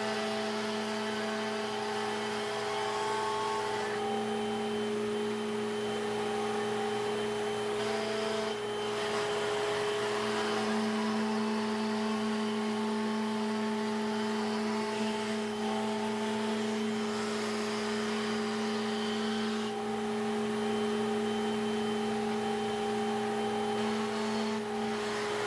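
A woodshop power tool's electric motor running steadily, with an even hum and whir, briefly changing a couple of times.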